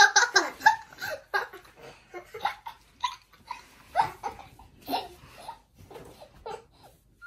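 Young girls laughing while play-wrestling and tickling, a quick run of giggles loudest in the first second, then scattered shorter bursts of laughter that thin out toward the end.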